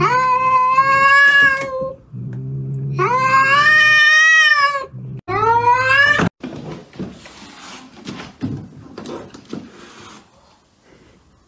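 A cat yowling in three long, drawn-out cries, each broken off by a low growl; the sound cuts off sharply about six seconds in. Softer scuffling and light taps follow.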